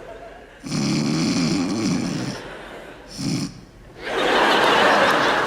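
A woman snoring loudly in an exaggerated, comic way: a long rasping snore, then a short snort, then a loud hissing rush from about four seconds in.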